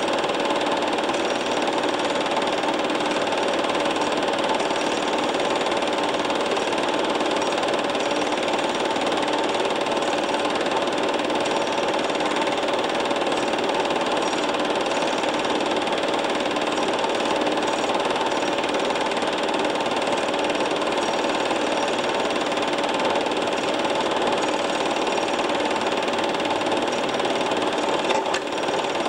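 Film projector running: a steady mechanical whirr and clatter with a constant hum that does not change for the length of the reel.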